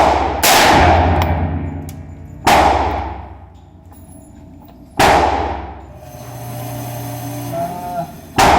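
AR-15 rifle fired through a fake suppressor: about five sharp shots, two close together at the start and the rest two to three seconds apart, each followed by a long echoing decay.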